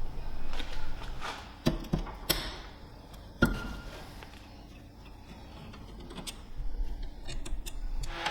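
Scattered sharp clicks and knocks: three close together about two seconds in, then a stronger knock with a brief ring a little after three seconds. Lighter, quicker ticking follows near the end.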